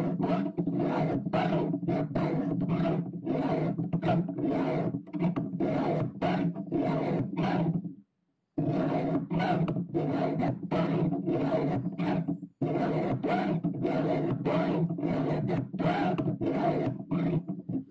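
Round file rasping across a chainsaw chain's cutter teeth in a bench-mounted filing guide, in quick repeated strokes of two or three a second. There is a short break about eight seconds in.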